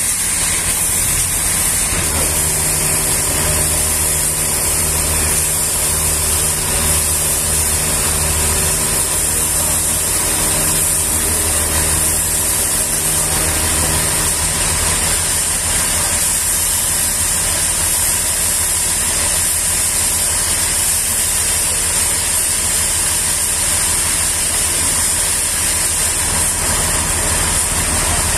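Sawmill machinery running steadily: an engine's low drone under a constant high hiss. From about two seconds in to about fourteen seconds in, a pitched hum joins it.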